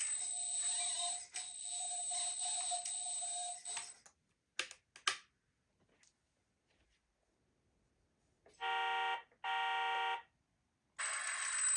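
A steady hiss with a thin, steady whine that cuts off after about four seconds, then two short clicks. After a pause, two identical electronic beeps of under a second each sound about a second apart.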